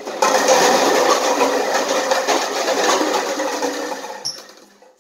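A tall stack of plastic party cups collapsing onto a hardwood floor: a dense clatter of hollow plastic cups tumbling and bouncing starts suddenly, stays loud for about three seconds, then thins to a few last rolling cups, with a final click near the end.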